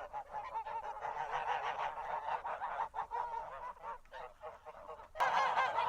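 Flock of farm waterfowl calling, many overlapping calls repeated quickly. About five seconds in it jumps suddenly to a louder, denser chorus.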